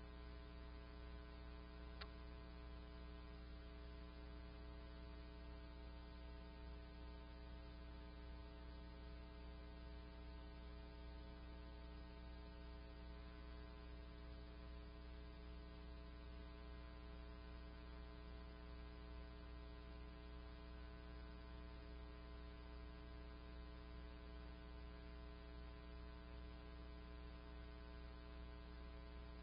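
Faint, steady electrical hum with many overtones, unchanging throughout, with a single small click about two seconds in.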